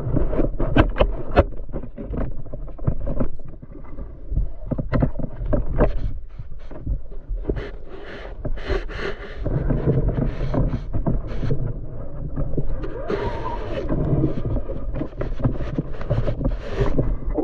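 Boat on the water: a steady low rumble with many sharp knocks and clicks, and bursts of wind on the microphone.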